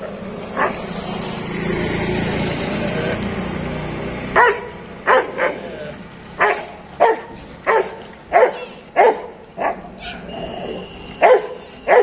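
Leashed Rottweiler barking aggressively at another dog: one bark, a pause filled with a low rushing noise, then a run of about a dozen deep barks spaced roughly half a second to a second apart. A brief high steady tone sounds near the end.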